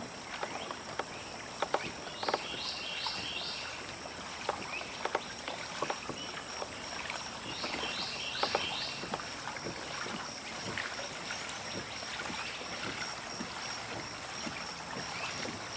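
Kayak drifting on a swamp creek: water noise with scattered light knocks against the boat. A bird calls twice, each time a quick run of three or four rising chirps, over a thin steady high whine.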